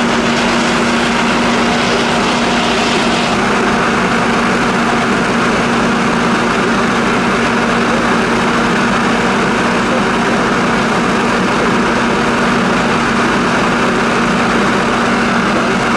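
Engine running steadily at one constant pitch under a loud, even rushing noise, with the hiss in the highest range dropping a little about three seconds in.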